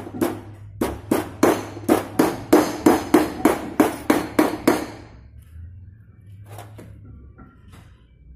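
A hammer tapping on a hydraulic PTO gear pump during assembly: about twenty quick, even strikes at about four a second, each with a short metallic ring, stopping about five seconds in.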